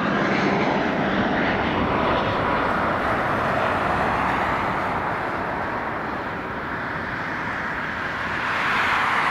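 Airbus A320-family jet airliner on final approach, flaring to land, with steady jet engine noise that eases a little midway and swells again near the end.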